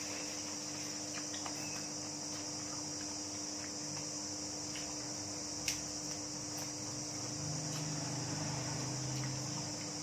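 Crickets chirring steadily in a continuous high-pitched drone, over a faint low hum. A single sharp click cuts through a little past the middle.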